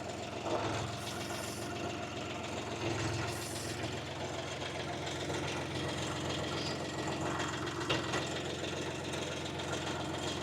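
UHI 254 25 hp tractor's engine running steadily at idle.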